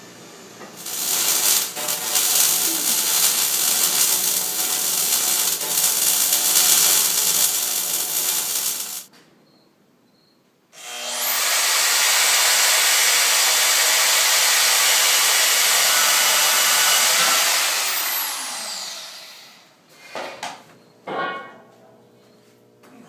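A handheld power tool cutting or grinding steel, run in two long stretches with a short pause between. The second run spins down with a falling whine, and a few light knocks come near the end.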